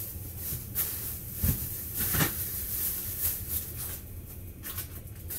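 A few light knocks and rustles from someone handling things in a kitchen, over a steady low hum.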